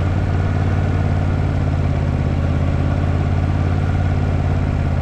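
Motorcycle engine running steadily as the bike is ridden slowly at about 25 km/h, an even, unchanging hum with no rise or fall in revs.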